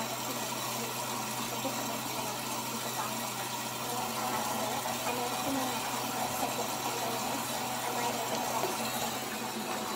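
Whirlpool washing machine running mid-cycle: a steady motor hum with a few constant tones, even in level throughout.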